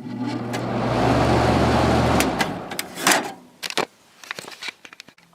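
The fan motor of a 5000 BTU GE Carry Cool window air conditioner, a General Electric motor, starting up: a steady electric hum with rushing air builds over about a second, holds, then dies away. A loud click comes about three seconds in, followed by a few lighter clicks.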